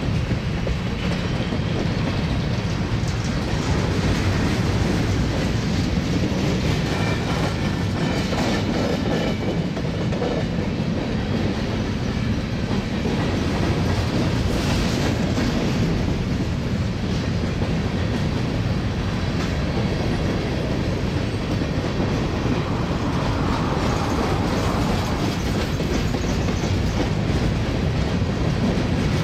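Empty covered hopper cars of a BNSF grain train rolling past, a steady rumble of steel wheels on the rails.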